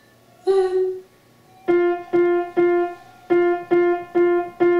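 A piano sounds one note, then strikes the same note over and over, about two a second, with a short pause partway through.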